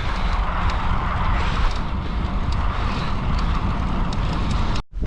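Steady rush of wind and road noise from riding a bicycle at speed, with wind rumbling on the microphone. It breaks off abruptly for an instant near the end.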